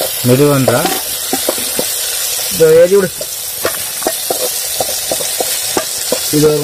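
Sliced onions and tomatoes sizzling in a metal pot over a wood fire, with a ladle clicking and scraping against the pot as they are stirred. A man's voice is heard briefly twice.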